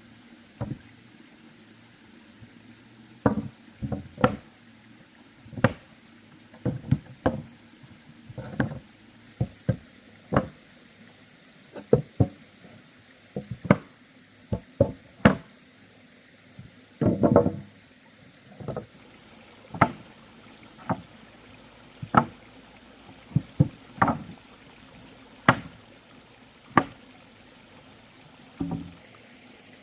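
Irregular sharp knocks, roughly one every second, with a short cluster of them just after the middle. Under them is a steady high-pitched insect drone. No chainsaw is running.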